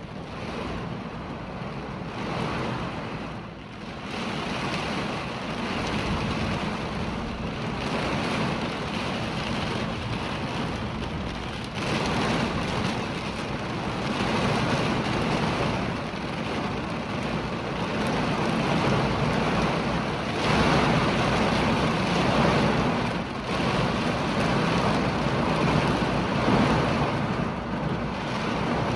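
Hurricane rain and wind: a dense, steady rush of noise that swells and eases every few seconds as gusts come through.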